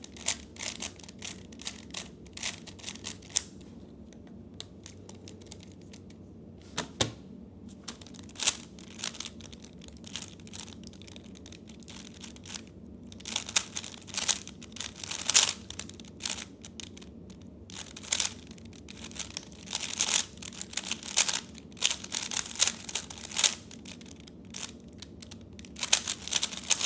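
3x3 Rubik's cube being turned fast in a solve: runs of quick plastic clicks and rattles from the layers, broken by short pauses.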